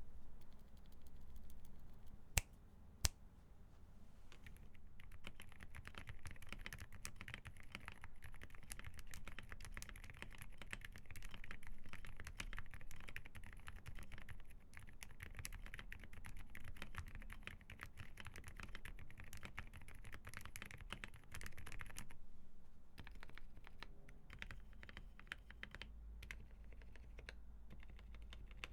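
Typing on a QK65 mechanical keyboard fitted with Huano Jarvis JJ silent linear switches: quiet keystrokes, fast and continuous from about four seconds in until about twenty-two seconds, then slower and sparser. Two sharper single clicks come a little over two and three seconds in.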